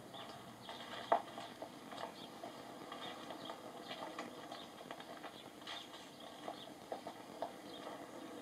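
Faint footsteps on pavement with scattered light taps and knocks, one sharper knock about a second in.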